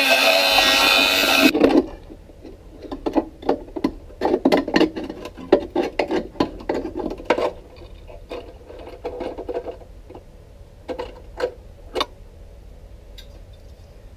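A Dremel rotary tool with a cutting disc whines as it cuts through rusty sheet steel, then stops about a second and a half in. Many short metallic clicks and taps follow as the cut-out pieces of sheet metal are handled and fitted.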